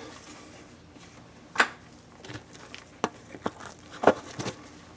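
A handful of light, sharp clicks and taps from copper pipe, fittings and flux being handled, the loudest about a second and a half in.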